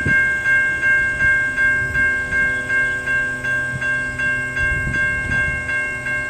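Railroad grade-crossing bell ringing steadily, about three strokes a second, over the low rumble and clacking of a freight train's cars rolling slowly past.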